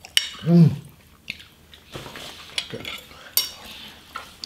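Metal forks clinking and scraping on plates during eating: a handful of sharp clinks with a brief ring, the loudest about three and a half seconds in. A short voice sound comes about half a second in.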